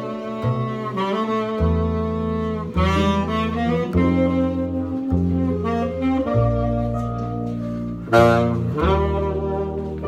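Upright double bass plucked by hand, playing long low notes that change about once a second, under a jazz tune with a sustained lead melody above it.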